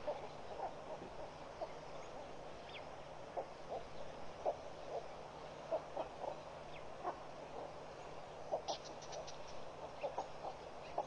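Birds calling: scattered short clucking calls over a steady hiss, with one short falling note and, a little before the end, a quick run of high chirps.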